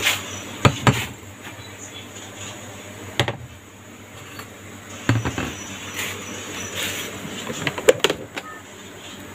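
Sharp knocks and clicks from a plastic plate being handled and an electric rice cooker's lid being unlatched and opened, with the loudest cluster of clicks near the end as the lid comes up.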